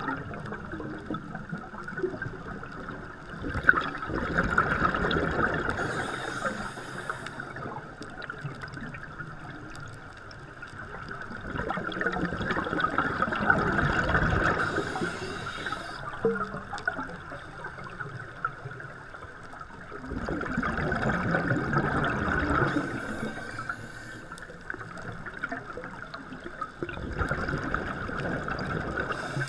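Scuba regulator exhaust heard underwater: the diver's exhaled bubbles come in four bubbling surges, one every seven or eight seconds, each lasting a few seconds, with a quieter hiss between breaths.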